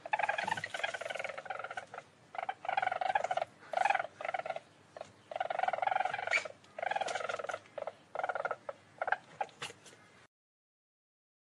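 Least weasel giving rapid trilling calls in a run of short bursts, cutting off about ten seconds in.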